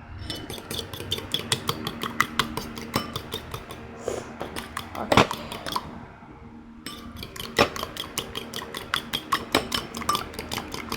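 Eggs being beaten in a bowl, the utensil clicking against the bowl in a fast, even rhythm, with a pause of about a second near the middle.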